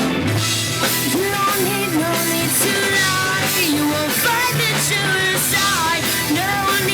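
Rock band playing an instrumental passage: steady bass and rhythm guitars under a lead melody line that bends up and down in pitch.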